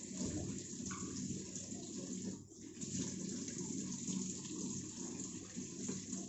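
Water running into the tub of an LG washing machine as it fills for its tub-clean cycle, a steady rush with a brief dip about two and a half seconds in.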